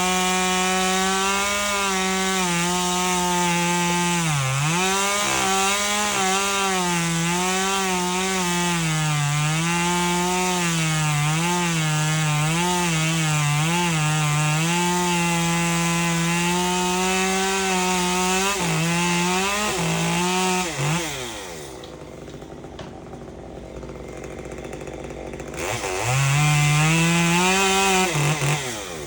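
Chainsaw at full throttle cutting through a tree, its engine pitch dipping and recovering again and again as the chain bites into the wood. About two-thirds of the way through it drops back to idle, then is revved hard once more for a couple of seconds near the end.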